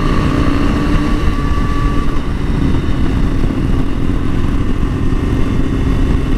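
Motorcycle engine running steadily at a cruise, heard from the rider's helmet-mounted microphone with heavy wind rush.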